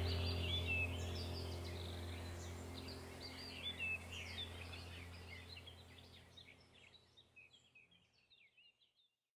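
Birds chirping over a steady low hum. The sound fades out gradually toward the end.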